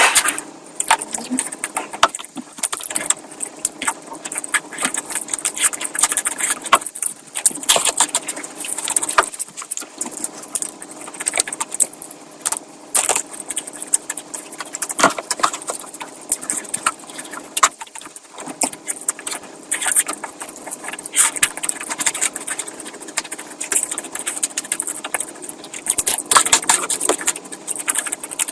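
Close-miked eating sounds: wet chewing and lip smacking, a dense run of irregular clicks and crackles.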